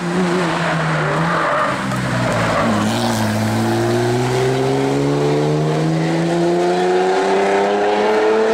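Porsche 911 rally car's flat-six engine. It drops in pitch as the car slows through a tight bend, then rises steadily as it accelerates away up the road in one long pull.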